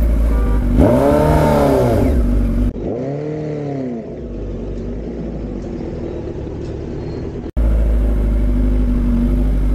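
Kawasaki Z1000 inline-four engine revved twice in quick throttle blips, each rising and falling in pitch, about a second in and again about three seconds in, then running steadily.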